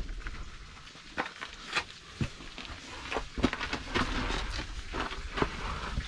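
Scuffing, scraping and rustling of a person crawling through a narrow rock cave, with several sharp knocks and clicks scattered through it.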